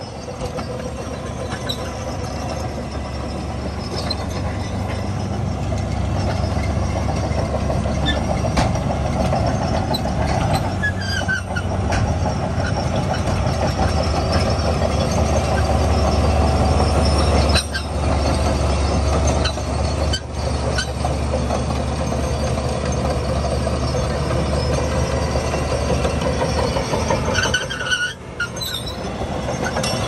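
Crawler bulldozer's diesel engine running steadily under load as it pushes sand, with the rumble dipping briefly a few times and short high squeals now and then.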